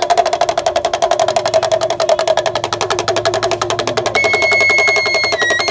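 Music: a fast, even rattling drum beat. About four seconds in, a high piping melody joins it, holding notes and stepping between them.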